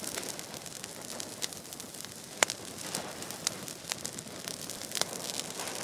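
Fire crackling over a steady hiss, with sharp pops scattered through it; the loudest pop comes a little before the middle.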